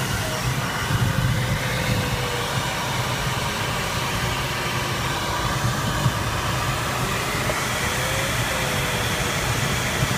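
Steady rush of airflow over an Arcus M glider's canopy, heard inside the cockpit. A faint variometer tone slides slowly down and then back up in pitch, following the changing lift.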